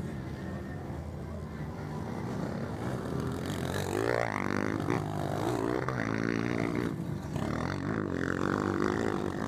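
230 cc motocross bike engines: a steady distant hum at first, then from about three and a half seconds in bikes come close and rev hard, their pitch rising and falling as the riders take the jump and power on.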